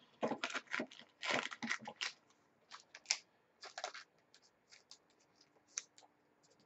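Trading cards being handled: a run of short scrapes, rustles and soft taps as cards are slid, shuffled and set down, busiest in the first two seconds and sparser after.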